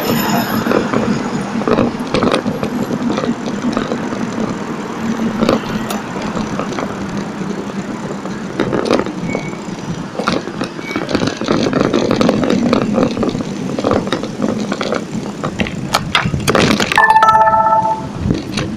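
Bicycle rolling fast over tiled paving, clattering and rattling over the joints, with street traffic passing. A brief pitched beep sounds near the end.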